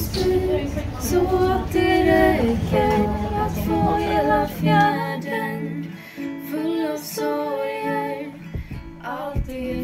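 A woman singing with guitar accompaniment. A low rumble underneath drops away about halfway through.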